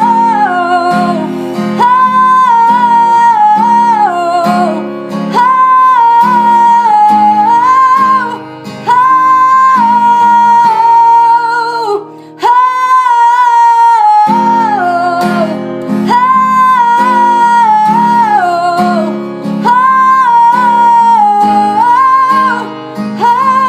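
Music: a woman singing long held notes over strummed acoustic guitar.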